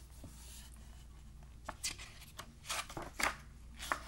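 Pages of a picture book being handled and turned: a soft rustle, then from about halfway through a run of short, sharp paper flicks and rustles, several a second.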